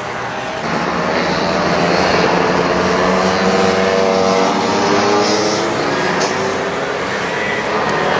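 Racing scooter engines revving hard as several scooters lap and pass, the engine pitch rising and falling.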